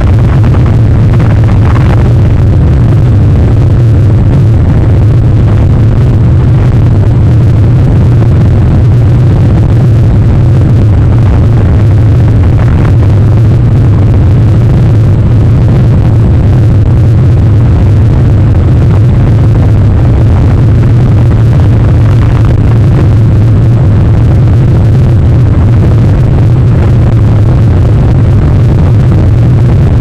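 Wind rumbling against an outdoor webcam's microphone in a rainstorm: a loud, steady, low roar with no let-up.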